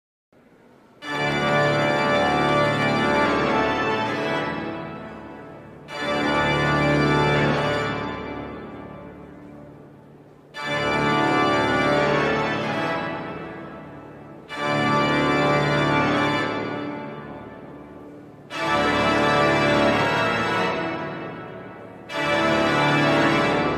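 The grand pipe organ of Notre-Dame de Paris playing an improvisation: six loud full-organ chords, one about every four seconds, each held a couple of seconds and then dying away slowly in the long echo of the cathedral nave.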